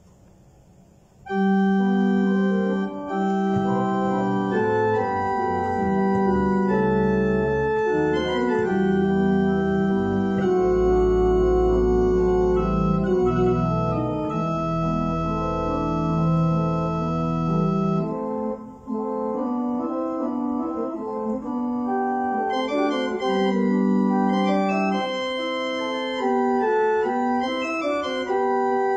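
Church organ playing: held chords with sustained deep pedal bass notes, starting about a second in, with a brief break about two-thirds of the way through.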